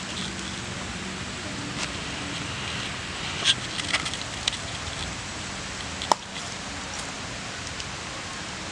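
Small wood fire crackling and hissing under giant African snails roasting in their shells, with a few sharp pops, the loudest about six seconds in.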